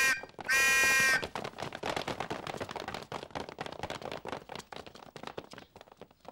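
An electric alarm buzzer sounding in long, even blasts, the last ending about a second in. Then comes a fast, uneven clatter of many hurried footsteps that fades toward the end.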